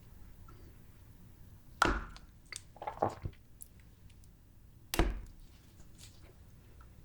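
Close-miked eating sounds of grape jelly: two sharp, loud squishy bites about two seconds and five seconds in, with a few smaller wet clicks between them.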